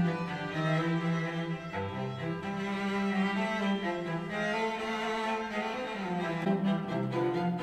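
Classical string music with a low cello line and other bowed strings, played back through a pair of PreSonus Eris E3.5 compact studio monitors and picked up by a microphone in the room. The sustained notes change about every second.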